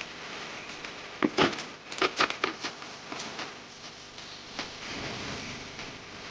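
Handling noise: a quick run of sharp knocks and clicks about a second in, then a few scattered fainter taps.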